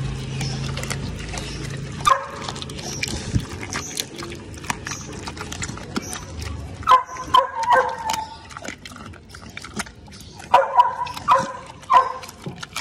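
Dog chewing and crunching raw meat from a hand, with many short wet clicks of the jaws. Short dog barks come in two clusters, about seven seconds in and again around eleven seconds. A low engine hum fades out about two seconds in.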